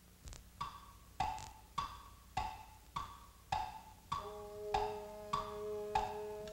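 Cartoon orchestral score: a wood block tapping a steady tick-tock beat, alternating a higher and a lower pitch about every 0.6 seconds. About four seconds in, two held notes come in underneath as a sustained chord.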